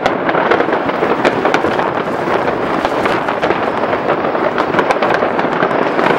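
Many fireworks and firecrackers going off at once, a dense, continuous crackling with a great many overlapping sharp cracks and pops and no pause.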